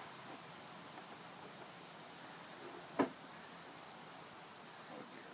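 Crickets chirping steadily, a high, evenly repeated pulse of about four chirps a second. There is a single short knock about three seconds in.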